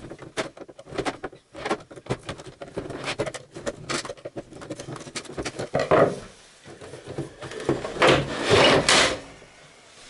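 Clicks, knocks and clatter of a keyboard organ's casing and parts being handled and taken apart, with a longer scraping noise about six seconds in and a louder one around eight to nine seconds in.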